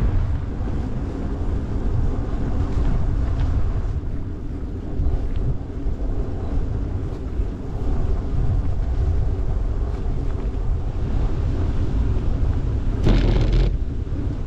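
Wind buffeting the microphone of a camera on a moving bicycle, a steady low rumble. A brief louder rush comes about thirteen seconds in.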